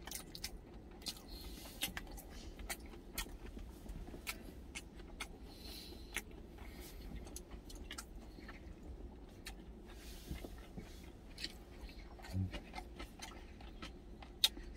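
Close-up chewing and mouth sounds of a person eating, with scattered small smacks and clicks, a brief closed-mouth hum about 12 seconds in and a sharp click near the end. A faint low steady hum lies underneath.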